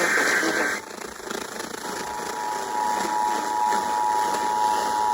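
Emergency Alert System broadcast heard over FM radio. The last of the SAME digital header bursts, a harsh data buzz, ends under a second in. After about a second's gap, the steady two-tone EAS attention signal starts and holds over radio hiss.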